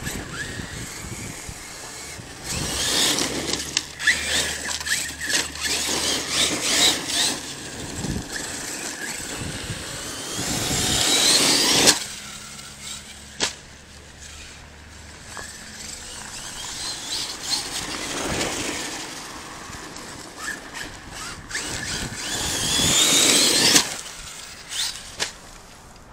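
Arrma Kraton 6S RC truck's brushless motor whining under throttle, rising in pitch as the truck speeds up and cutting off suddenly, twice: about halfway through and again near the end. Short clicks and crunches of the tyres on dirt and gravel run between the runs.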